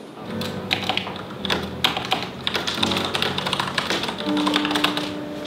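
Rapid typing on a computer keyboard, many quick key clicks, over background music with steady held notes.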